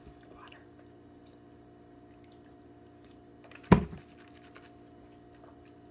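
Soft wet mouth sounds of a person clearing food from her teeth, likely sesame seeds, with one loud sharp smack about two-thirds of the way through, over a steady low appliance hum.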